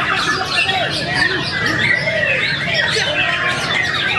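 Many caged songbirds singing at once: a dense, continuous tangle of overlapping chirps, trills and whistles, with people's voices mixed in underneath.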